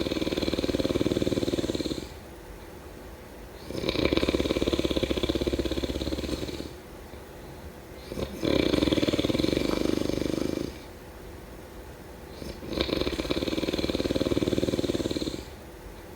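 A person snoring in a steady rhythm: four buzzing snores, each two to three seconds long, one about every four seconds.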